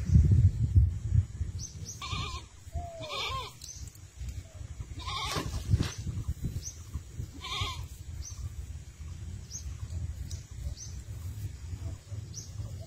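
Goats bleating: four short, wavering calls spread across the first eight seconds. Faint high chirps repeat about once a second, and a low rumble is loudest at the start.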